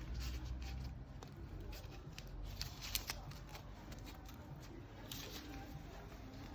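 Bamboo leaves rustling and crinkling as a zongzi is folded and wrapped by hand, with irregular small clicks and one sharper click about three seconds in.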